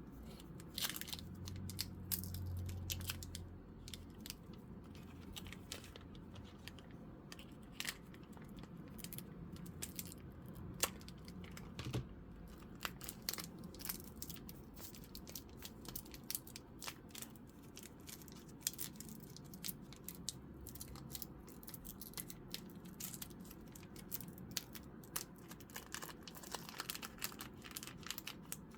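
Foil booster pack wrapper being torn open and crinkled, with a run of small clicks and crackles as the Pokémon cards are handled.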